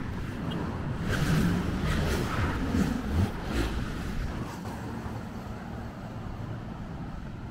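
Road traffic on a city street: cars going past, louder in the first few seconds, then settling to a quieter steady rumble.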